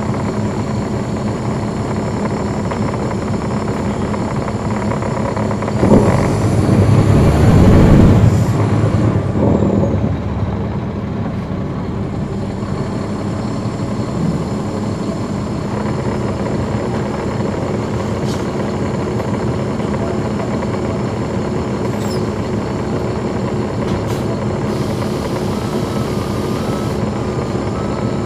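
Caterpillar C13 ACERT diesel engine of a 2009 NABI 40-foot transit bus running steadily, heard from on board, with its cooling fans off. A louder rush of noise swells and fades between about six and ten seconds in.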